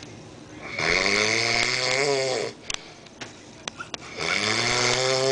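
A man snoring heavily in his sleep: two long snores of about two seconds each, roughly three seconds apart, with a few small clicks in the pause between.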